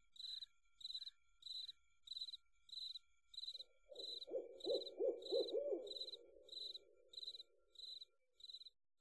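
Crickets chirping in an even rhythm, about one and a half chirps a second, and from about three and a half seconds in an owl's wavering hoot that swells and then trails off near the end.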